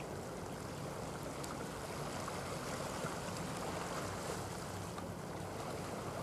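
Steady seaside ambience: an even wash of water and light wind, with a faint steady low hum underneath.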